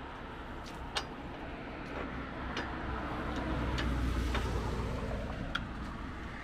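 Light clicks and clinks of metal fittings as a motorbike carrier's mounts are refitted on the back of a camper van, about five over several seconds. Under them runs a low rumble that swells in the middle and fades again.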